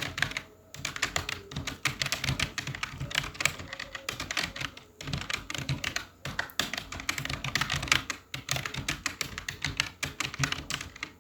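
Fast, continuous typing on a computer keyboard during a timed typing-speed test, the keys clicking in quick, irregular runs with a few short pauses.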